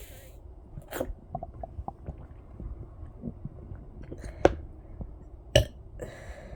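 Stomach gurgling and squelching, full of a lot of freshly drunk water, with scattered small clicks and two sharp clicks in the second half.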